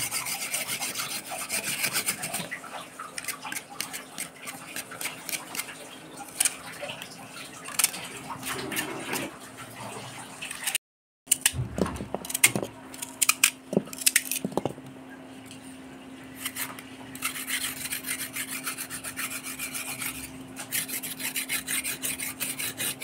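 Kitchen knife scraping the skin off lotus stems in quick rasping strokes, then, after a brief break, chopping the stems into pieces on a tray with sharp knocks.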